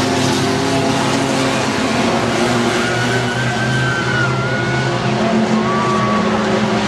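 Engines of racing pickup trucks running hard around a dirt oval, loud and steady, with a new, higher engine note joining about five seconds in.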